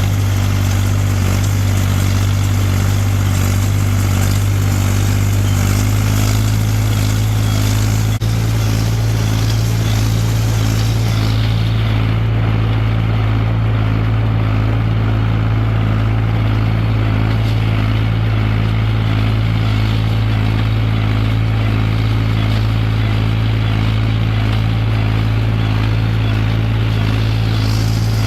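Tractor engine running steadily while pulling a square baler through windrowed hay. The engine note shifts slightly about six seconds in.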